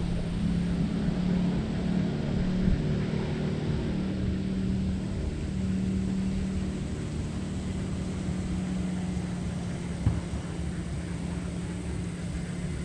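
Steady drone of a distant motor engine, holding one pitch, over a low uneven rumble. A single light knock about ten seconds in.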